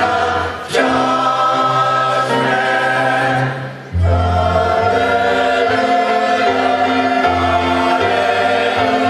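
Mixed choir singing full, sustained chords, with short breaks between phrases about half a second in and just before four seconds.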